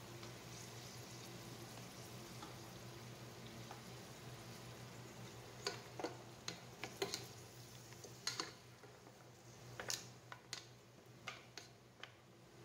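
Beef chunks sautéing in a pot with a faint steady sizzle. From about halfway in, a cooking utensil stirs the meat, making a dozen or so short, irregular scrapes and knocks against the pot.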